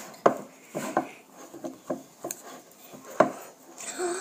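A utensil knocking and scraping against a bowl in irregular clacks while slime ingredients are stirred together. The loudest knocks come about a third of a second in and just after three seconds in.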